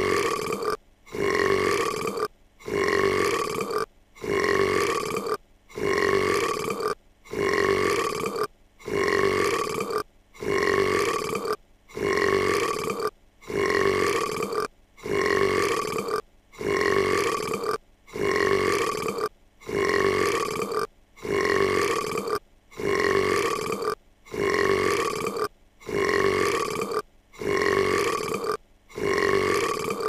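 A cartoon girl's belch, the same burp clip looped over and over: about twenty identical burps in a row, each a bit over a second long, with a short gap between.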